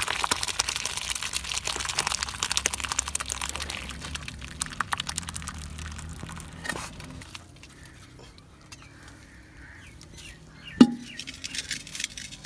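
Boiled saag greens and their cooking water pouring from a pot into a stainless-steel colander, the water splashing and draining through with a crackling hiss that fades away after about seven seconds. Near the end comes a single sharp knock with a short ring.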